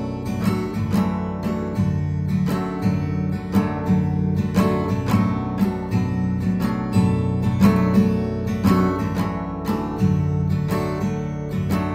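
Taylor cutaway acoustic guitar played in a steady rhythm of chord strokes, an instrumental passage with no singing.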